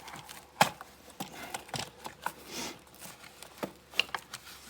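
Hands working a snowmobile recoil starter while tensioning its rewind spring: scattered light clicks and knocks of the housing and parts, the sharpest about half a second in.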